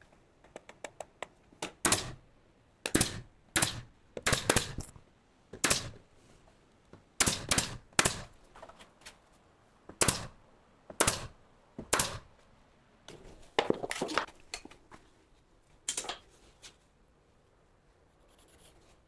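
Pneumatic nail gun firing about a dozen sharp single shots at irregular intervals, roughly a second apart and sometimes in quick pairs, fastening boards around a door opening, with fainter clicks and knocks in between.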